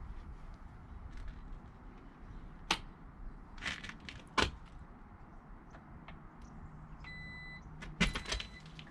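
Sharp clicks and knocks of hands and meter probes working in a rooftop HVAC unit's electrical section during voltage checks. Near the end comes a short high electronic beep, with a low steady hum underneath.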